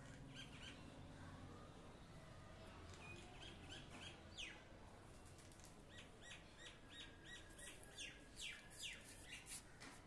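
Myna calling faintly: scattered short chirps, then a quick run of about three chirps a second, and near the end several sharp downward-sweeping whistles.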